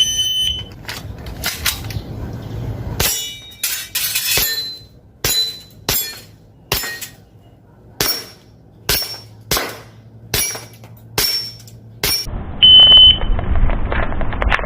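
An airsoft gun firing about a dozen single shots at a steady pace, each hit followed by a short metallic ring. A short, steady, high beep sounds at the start and again near the end.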